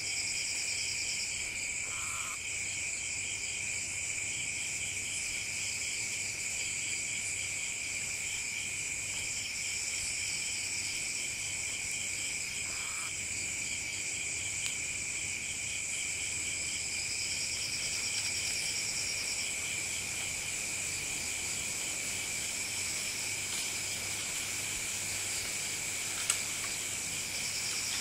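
Night chorus of crickets and other insects: several steady high-pitched trills at different pitches, one of them pulsing on and off every few seconds. A short lower note sounds twice, about 2 and 13 seconds in, and a single sharp click comes near the end.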